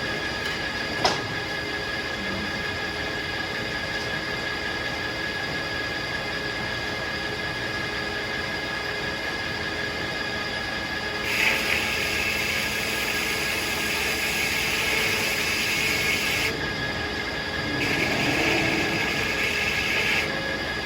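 Circular sawmill running with a steady whine from its spinning blade. Twice the blade cuts into a tulip poplar log and the sound turns louder and hissier: once about halfway through for about five seconds, and again briefly near the end. There is a sharp click about a second in.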